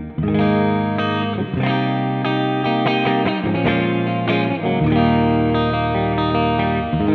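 Electric guitar played with a clean tone through a NUX Cerberus multi-effects pedal with its reverb on: ringing notes and chords that change every second or so, each carrying a reverb tail into the next.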